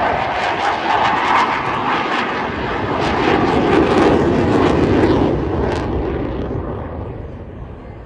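Eurofighter Typhoon fast jet passing during a flying display, its twin EJ200 jet engines giving a loud, crackling jet noise that dies away near the end.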